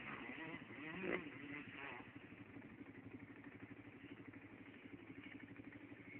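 ATV engine ticking over at a steady idle, with a quick even pulse. About a second in there is a short, louder rise and fall in pitch.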